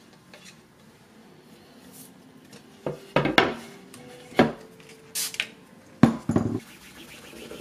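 Ceramic dishes clinking and clattering in about five short bursts, one clink ringing on briefly.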